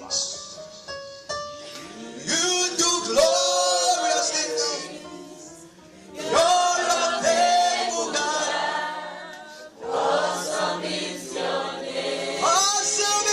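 Congregation and worship leaders singing a gospel worship song as a choir, in sung phrases of a few seconds with short breaks between them.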